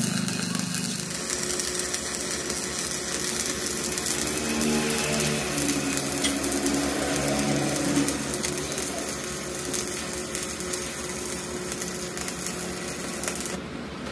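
Stick (arc) welding: the electrode arc crackling and sizzling steadily as a bead is laid across the joint of a broken crankshaft. It stops about a second before the end.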